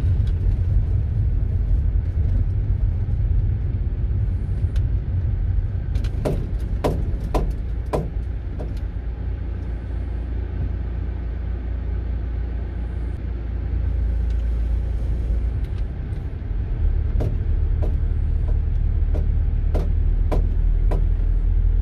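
Engine and road rumble heard from inside a VW Caddy van's cab as it drives slowly into a car park. Sharp ticks come about twice a second for a couple of seconds midway and again near the end.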